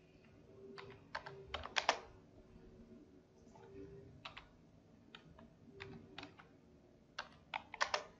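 Computer keyboard keys typed in short, faint clusters of a few strokes each, with pauses between, as numbers are entered.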